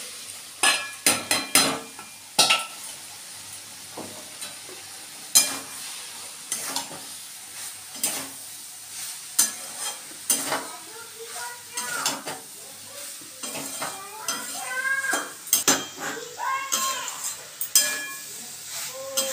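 Boiled mixed vegetables tipped from a steel bowl into a metal kadai of frying masala, then stirred with a metal spatula: sharp clinks and scrapes of metal on the pan over a light sizzle, the strongest knocks in the first couple of seconds. A few high, wavering calls sound in the background in the second half.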